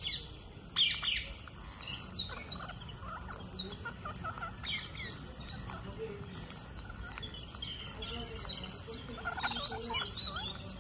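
A flock of rose-ringed parakeets chattering while they feed: many overlapping short, high chirps, with a louder, harsher call about a second in and another near the end.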